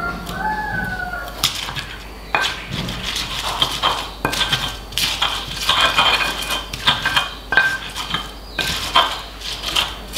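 Stone pestle crushing and grinding chilies and shallots in a stone cobek (mortar): irregular knocking and scraping strokes of stone on stone, starting about a second and a half in.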